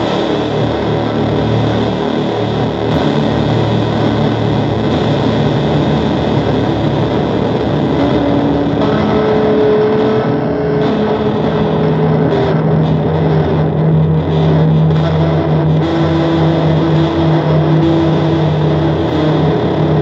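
Loud, dense noise music: a steady wall of distorted sound. Held low tones come up out of it from about twelve seconds in.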